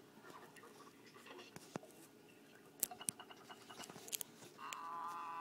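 Plush toys and fingers rubbing against the phone's microphone: scratchy handling noise with scattered clicks. Near the end a high, wavering pitched sound starts and is the loudest thing.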